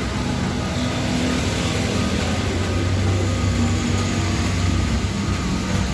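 Steady low motor rumble, like an engine running.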